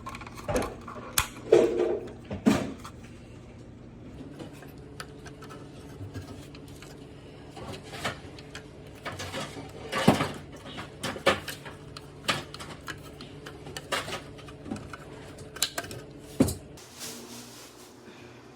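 Irregular plastic clicks and knocks as the refrigerator dispenser's housing and spring are handled and fitted, over a steady low hum that stops near the end.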